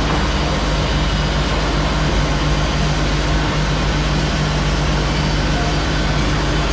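A heavy engine running steadily with a low, even rumble.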